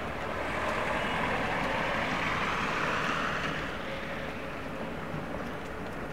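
Street traffic noise as a two-car Tatra tram set rolls through a curve on wet cobbled track: a broad rushing pass-by swells about half a second in and fades after about three and a half seconds.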